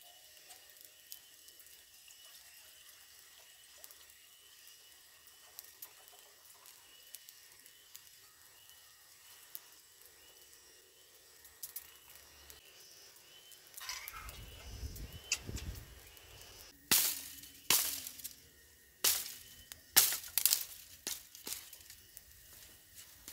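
Small wood campfire crackling faintly, with a faint high chirp repeating in the background. About two-thirds in comes handling noise, then a series of loud, sharp cracks of dry sticks being snapped or split for the fire.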